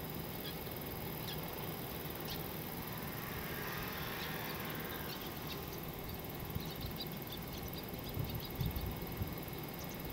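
Wetland ambience: a steady hiss with faint, short high chirps of small birds dotted through it. Past the middle the chirps come thick and fast for a couple of seconds, with a few low bumps near the end.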